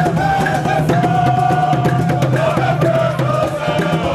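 Traditional drumming on large wooden and barrel drums, a fast, steady beat, with a group of voices chanting along in long held notes.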